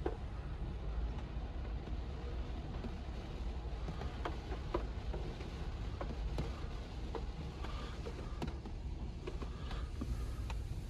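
Rollover car wash machinery and its spinning foam brushes heard muffled from inside the car as a steady low rumble, with scattered light ticks of water drops on the body and glass.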